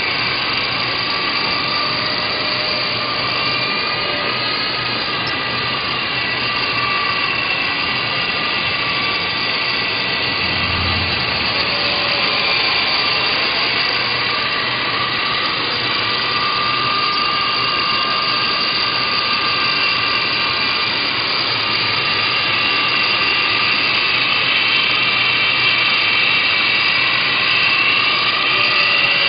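Walkera LAMA 400 coaxial electric model helicopter in flight: the motors give a steady high whine over the rotor buzz, the pitch wavering up and down as the throttle changes.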